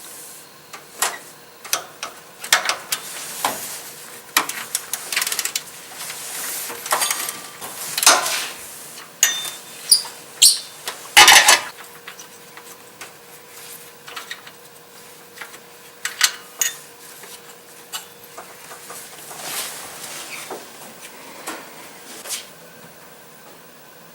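Hand tools clinking and scraping against metal while the serpentine belt tensioner pulley's bolt is loosened and removed: irregular sharp clicks and short scrapes, the loudest about eleven seconds in.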